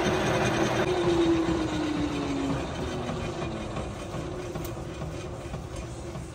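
Metal lathe spinning an aluminium LB7 Duramax piston in a four-jaw chuck. The cutting noise dies away early on, the lathe's hum drops in pitch about a second in, and the running sound fades steadily as the lathe winds down.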